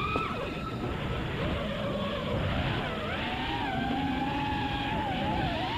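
FPV quadcopter's brushless motors and folding propellers whining, the pitch rising and dipping with throttle, over a rough rumble of wind and prop wash on the onboard camera.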